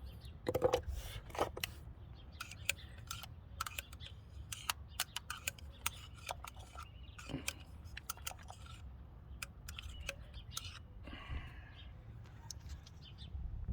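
Scattered small metallic clicks and taps as a loosened spark plug is fished out of its deep plug well with a magnetic pick-up tool, irregular and many, some louder than others.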